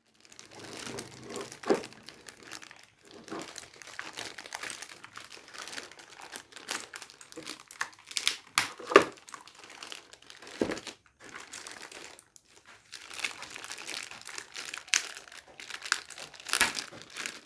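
Packaging being handled and crinkled while the keyboard is unboxed: irregular rustling with sharp crackles, and a few louder crunches about 2, 9 and 16 seconds in.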